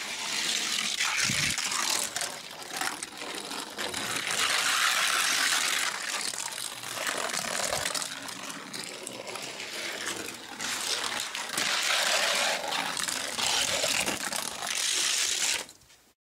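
A Hot Wheels Jack Hammer die-cast car rolling down a gravity race track, its small wheels making a rushing, rattling noise that swells and eases as it runs over different sections, with a couple of sharp knocks. It cuts off suddenly near the end.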